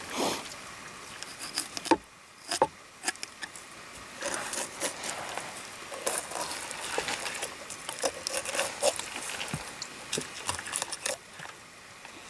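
Knife filleting a northern pike on a wooden cutting board: the blade slicing and scraping the fillet away from the skin, with irregular small clicks and scrapes and two sharper knocks about two seconds in.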